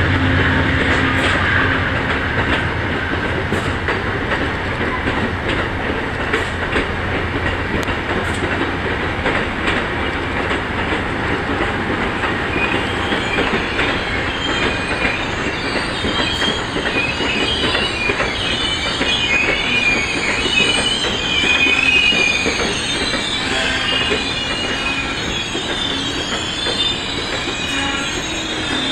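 Amtrak Superliner bilevel passenger cars rolling slowly into the station, wheels clicking over the rail joints. From about halfway through, high wavering wheel and brake squeal joins in as the train slows to a stop.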